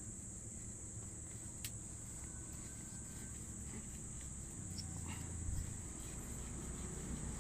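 Insects calling in a steady, high-pitched chorus, with a low rumble underneath and a faint click about one and a half seconds in.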